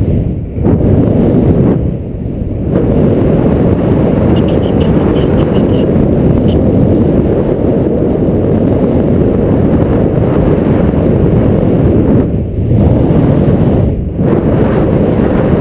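Wind buffeting the action camera's microphone during paraglider flight: a loud, steady low rush that eases briefly a few times, about 2 s in and twice near the end.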